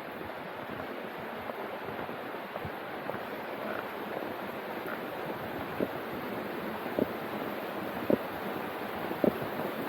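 Footsteps at a slow walking pace, about one step a second, clearer in the second half, over a steady rushing noise.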